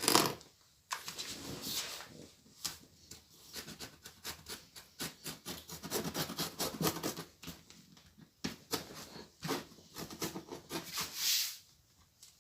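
A parcel's packaging being worked open by hand: irregular scratching, rubbing and crinkling, with a sharp scrape right at the start and a longer hissing rasp near the end.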